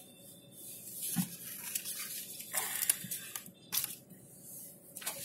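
Papers rustling and crinkling in irregular bursts as a stack of documents is handled and leafed through, with a few sharper crackles near the end.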